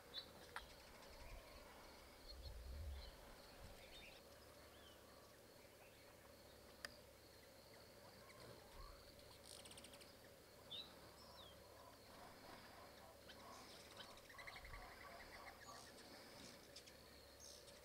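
Faint natural outdoor ambience: scattered short bird chirps and a quick rapid trill near the end, over a steady high insect hum.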